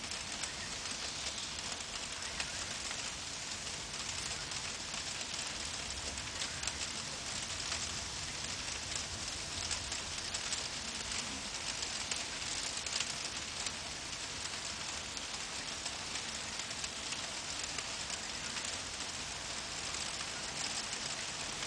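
Steady rain falling, a continuous hiss with many small drop ticks, and no thunder.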